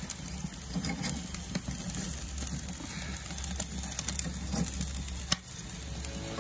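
Pork belly and chicken grilling over charcoal on a wire grill: fat sizzling with scattered sharp pops and crackles, over a steady low hum.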